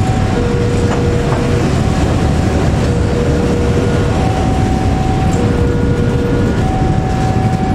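Flat container wagons rolling slowly past with a steady low rumble of wheels on rail. Over it, a two-tone warning alarm switches between a low and a higher note about once a second, typical of a level-crossing signal.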